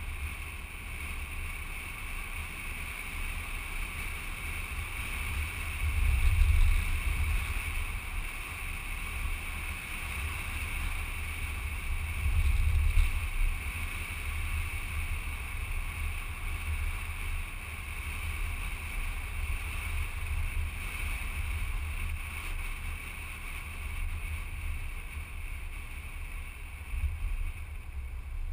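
Wind buffeting the microphone of a camera mounted outside a moving car, over a steady running noise from the car. Two stronger gusts come about six and thirteen seconds in.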